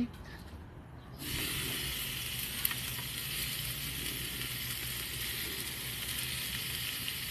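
Cubes of ribeye steak sizzling on a flat-top griddle heated to 400 degrees on a gas grill. The sizzle comes in suddenly about a second in as the meat goes onto the hot plate, then holds steady.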